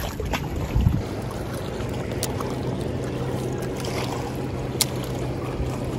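Water splashing briefly at the start as a small largemouth bass is dropped back into the lake, then a steady wash of wind and lapping lake water with a low steady hum under it and a single sharp click about five seconds in.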